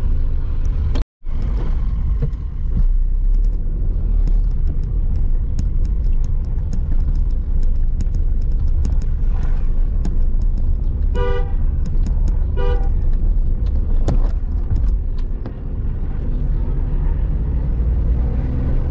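Car engine labouring up a steep hill, a heavy steady low rumble heard from inside the car. A car horn honks twice a little past the middle, the first honk longer than the second.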